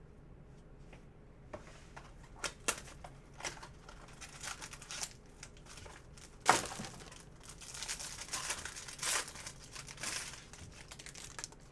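Wrapping of sealed trading-card packaging being torn open and crinkled by hand. A few sharp crackles build into rustling, with one loud rip about halfway through, followed by more crinkling.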